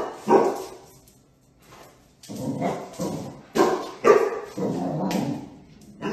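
Puppy barking in play at a garbage can lid: two barks, a quiet pause of over a second, then a run of about five more barks.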